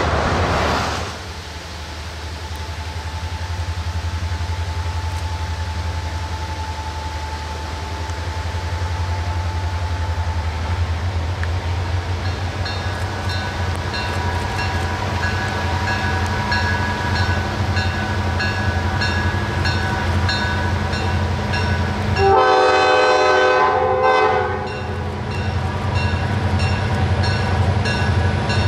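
Diesel-electric locomotive approaching with its engine running, growing louder as it nears. From about halfway through its bell rings steadily. About two-thirds of the way in it sounds one loud horn blast of roughly two seconds.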